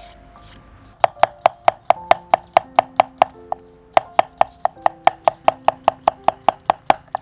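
Kitchen knife slicing a cucumber on a wooden cutting board: quick, even strokes of the blade striking the board, about four or five a second, starting about a second in.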